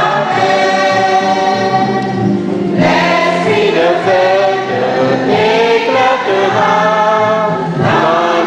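Church choir singing a hymn, in phrases of held notes.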